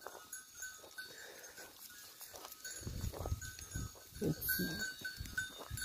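Sheep bells clinking on and off among a grazing flock of sheep, with a short sheep bleat about four seconds in.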